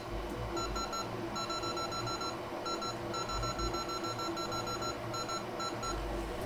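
Hot air rework station beeping: short high electronic beeps repeating quickly, in runs broken by brief pauses, over a low hum.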